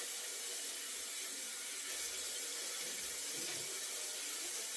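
Kitchen faucet running steadily into a stainless steel sink, a constant hiss and splash of water while dishes are washed under it.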